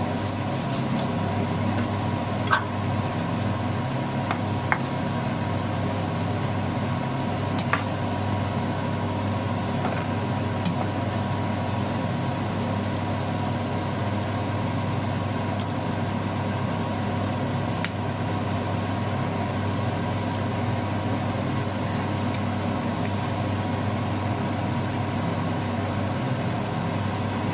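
A pan of pork in shrimp-paste sauce simmering and bubbling over a steady background hum, with a few light taps of a metal spoon against the pan as it is stirred.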